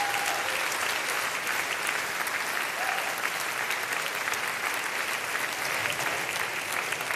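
Large audience applauding steadily: dense, even clapping from a packed hall.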